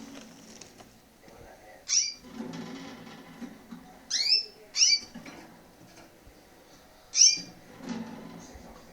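Caged canaries giving short, loud, sweeping call notes, four in all, spaced a second or more apart, over a faint low background murmur.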